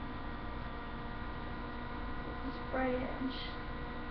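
Steady electrical mains hum, with a brief pitched murmur from a person's voice about three seconds in.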